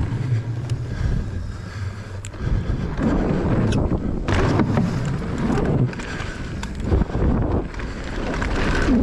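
Mountain bike rolling fast down a dirt freeride trail: a continuous rough tyre noise with wind buffeting the microphone. Several sharp knocks and rattles come from the bike over bumps.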